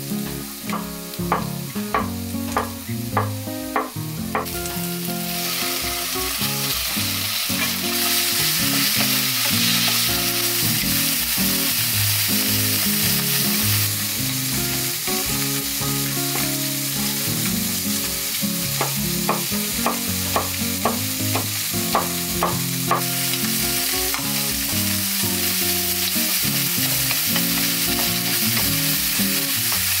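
Chef's knife chopping on a wooden cutting board: quick runs of knocks through block tofu, then again about eighteen seconds in through a red chili pepper. A loud steady hiss sets in about five seconds in and continues throughout.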